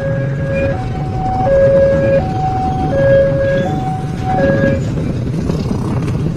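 Railway level-crossing warning alarm sounding an electronic two-tone signal that alternates high and low about every 0.7 s, then stops about five seconds in. A steady low rumble of road traffic or engines runs underneath.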